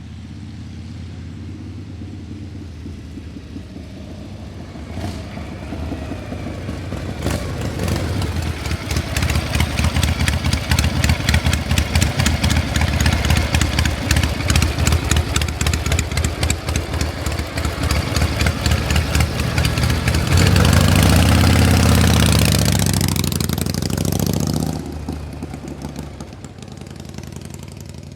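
An engine running with a fast, even train of firing pulses that builds up over several seconds. About two-thirds of the way through it revs, its pitch rising, then drops back abruptly and dies away to a low hum.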